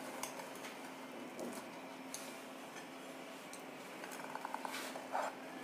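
A pizza cutter wheel rolling through a baked pizza crust, scraping faintly, with a short run of light clicks against the tray about four to five seconds in.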